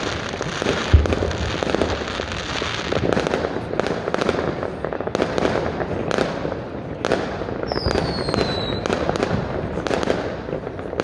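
Homemade fireworks and firecrackers going off all over the city: dense, continuous crackling with many sharp bangs. There is one heavy deep bang about a second in, and a descending whistle from a whistling rocket about three-quarters of the way through.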